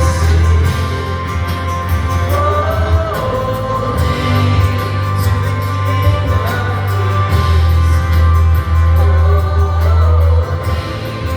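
Live worship band playing a slow song, with voices singing a held melody over a strong, steady bass.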